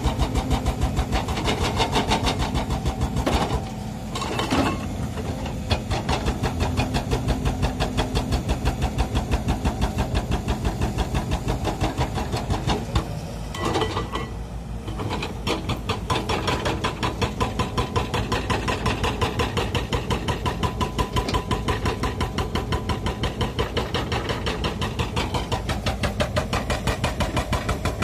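Diesel engine of a Sumitomo 130 hydraulic excavator running under load while it digs, a steady fast pulsing beat that eases briefly about four seconds in and again around fourteen seconds.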